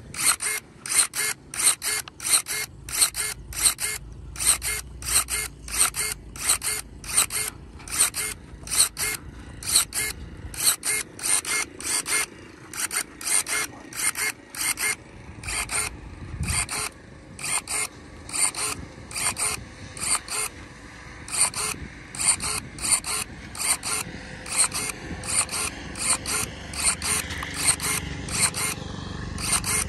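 Electric pruning shears' gear-driven motor whirring in short, quick strokes, about two to three a second, as it drives the blades open and shut over and over.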